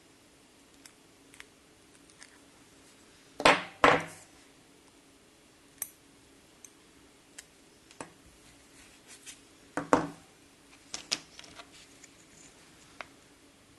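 Small close-up handling sounds of a pointed tool and fingers working a piece of double-sided tape with paper backing: scattered light clicks, with two louder short strokes about three and a half seconds in and another cluster near ten seconds.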